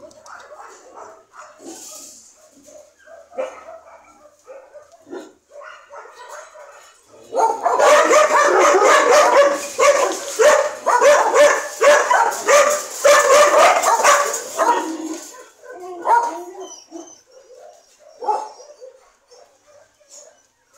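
Dogs playing and vocalising, with short scattered yips and barks at first. About seven seconds in comes a run of loud, rapid barking lasting some seven seconds, after which the barks thin out again to occasional yips.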